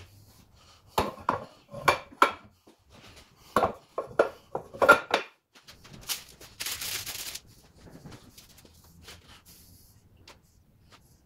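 Hardwood strips knocking and clacking against each other and the bench as they are set down in a row, about a dozen sharp knocks over several seconds. A short scraping rustle follows about seven seconds in.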